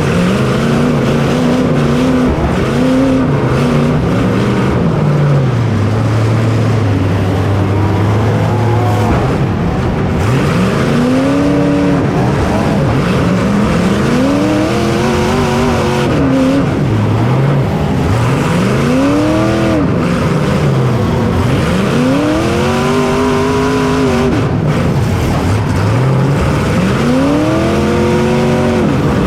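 Racing engine heard from on board, its pitch climbing and falling back again about every three to four seconds as it accelerates and lifts off lap after lap around the track.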